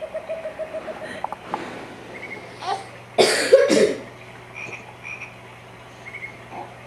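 A baby cooing and grunting in short croaky sounds, with a louder, raspy grunt a little over three seconds in.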